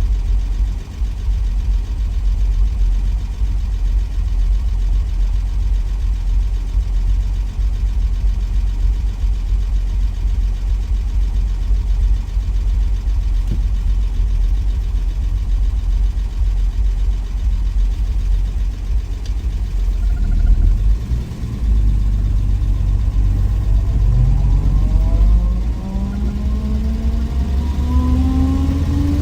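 1963 Willys Wagon's 230 Tornado overhead-cam straight-six on the move, a steady low rumble. About three-quarters of the way in, the engine note climbs steadily in pitch as it accelerates.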